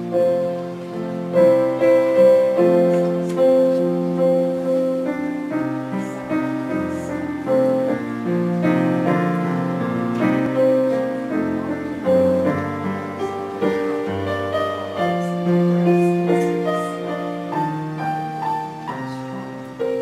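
Slow, gentle piano music: a melody of held notes over sustained lower chords.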